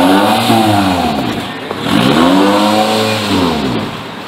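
Engine of a scrap-built formula-style car revving up and dropping back twice, its pitch rising and falling each time.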